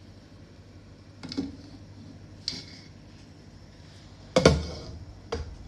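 Four short knocks and clatters of kitchenware being handled, the loudest a little over four seconds in, over a steady low hum.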